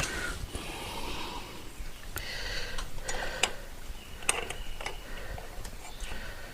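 A few scattered light clicks and taps, irregular, most of them in the second half.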